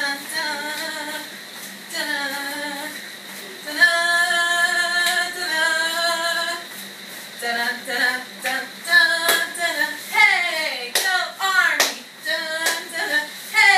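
A woman singing unaccompanied, with sharp hand claps in between. She holds long notes about four seconds in, then breaks into quick sliding phrases.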